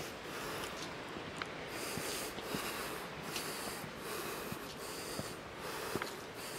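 A hiker breathing hard and fast, out of breath from the uphill climb, with footsteps scuffing on a gravel and stone-step path.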